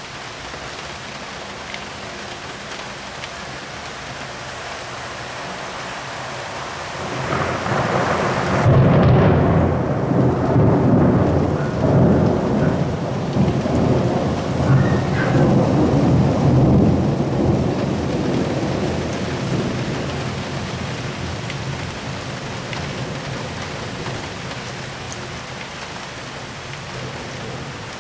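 Steady rain with a long roll of thunder that builds about a quarter of the way in, rumbles loudest for several seconds, then slowly dies away.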